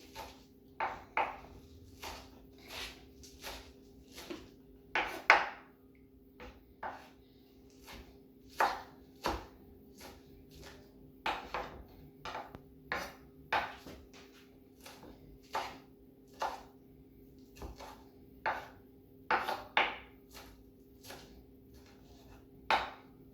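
Knife chopping fresh spinach on a cutting board: a long series of short, irregular chops, roughly one or two a second, over a steady low hum.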